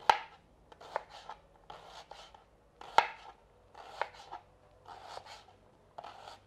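Kitchen knife slicing a white onion on a wooden cutting board: a crisp cut roughly once a second as the blade goes through the layers and meets the board, with two sharper knocks of the blade on the board, near the start and about three seconds in.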